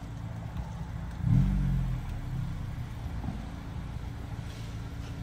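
2022 Honda Civic Si's turbocharged 1.5-litre four-cylinder idling through its exhaust, with one short throttle blip about a second in that rises and falls back to idle.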